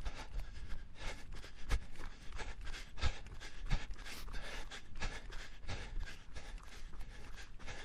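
Dense, irregular crackling and clicking, with a few heavier low knocks about two, three and four seconds in.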